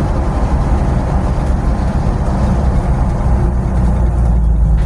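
Loud, steady engine and road noise inside the cabin of a stripped-out vehicle on the move, which has no interior trim or door seals and still has open holes in the body.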